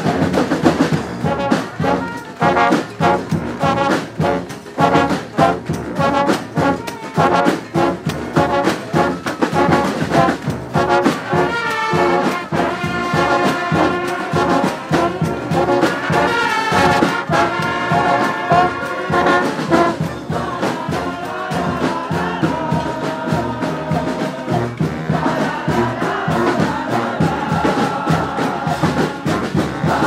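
Massed street brass bands playing a tune together: trumpets, baritone horns, mellophones and sousaphones over drums. The first part is punchy rhythmic stabs, followed by a stretch of long held chords in the middle.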